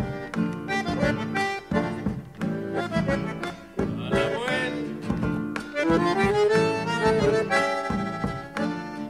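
Background music led by an accordion.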